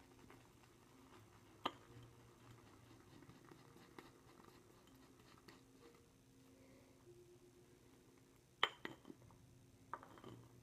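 Faint wet squishing of a Thäter two-band badger shaving brush working lather in a bowl, with a few sharp clicks of the brush or bowl, the loudest a pair near the end.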